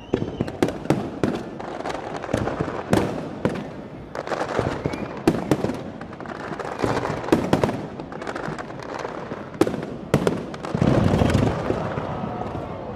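Aerial fireworks going off in a rapid, irregular series of sharp bangs and crackles, with a denser, rumbling cluster of blasts about eleven seconds in.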